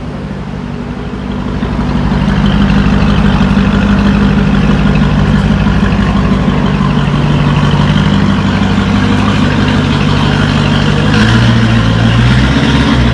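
Lamborghini Urus's twin-turbo V8 idling steadily through a Mansory exhaust, growing louder about two seconds in. Its note shifts about eleven seconds in.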